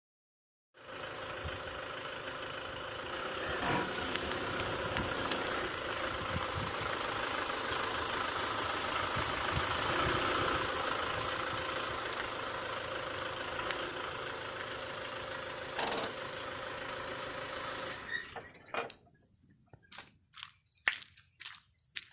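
A machine running steadily with a constant hum, which cuts out near the end and gives way to a run of sharp clicks and crackles.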